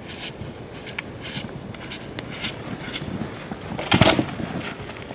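Footsteps crunching in snow with small twig snaps as a person carries a dead branch, then about four seconds in a loud crack and thud as the dead branch hits the snowy ground.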